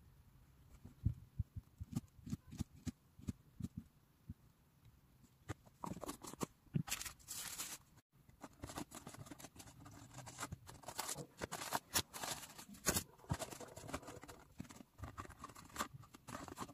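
A table knife tapping and scraping on a slice of toast, soft low knocks, then from about six seconds in dense crinkling and rustling as cardboard gift boxes and their wrapping are handled and opened.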